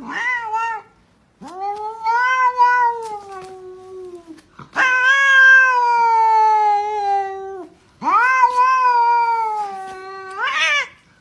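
Domestic cat yowling. A short call is followed by three long, drawn-out yowls, each sliding slowly down in pitch; the last rises sharply at its end.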